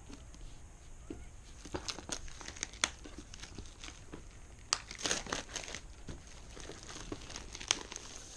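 A cardboard power-supply box and its packaging being opened and handled: crinkling and rustling with scattered sharp clicks, busiest about halfway through.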